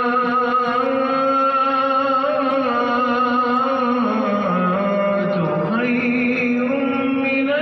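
A single male voice chanting in Arabic style, one long melodic line held without a break, dipping lower about four seconds in and climbing back up near six seconds.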